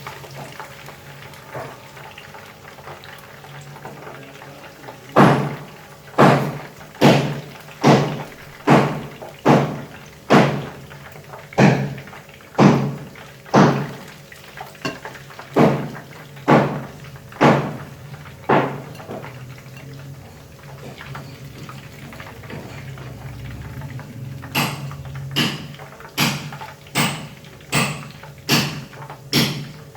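A metal kitchen utensil knocking against cookware in a run of ringing knocks, about one a second, then a quicker run of about two a second near the end, over a steady low hum.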